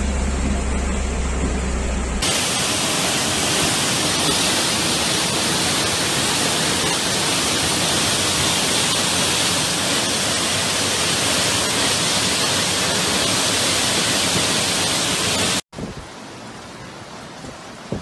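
A car's low engine rumble for about two seconds, then a sudden change to a loud, steady rushing of water in a flash-flood downpour, which drops abruptly to a much quieter hiss near the end.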